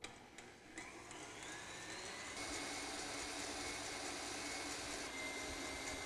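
KitchenAid stand mixer motor running with its wire whisk beating egg whites and sugar into a French meringue, speeding up with a rising whine over the first two seconds or so, then running steady.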